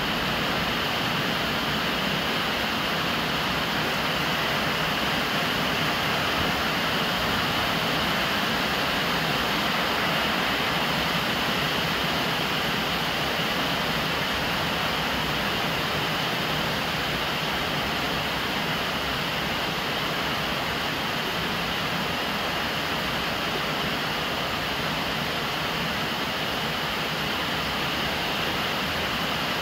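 Steady rain, with a stream of rainwater pouring from a downpipe and splashing onto the lid of a large water jar. The splashing and pattering go on evenly, without a break.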